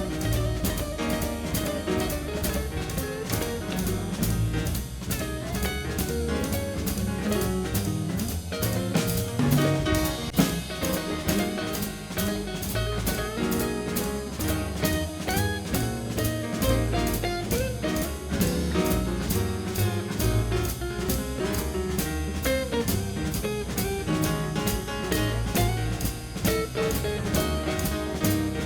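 Background jazz music with a steady drum-kit beat and a walking double bass.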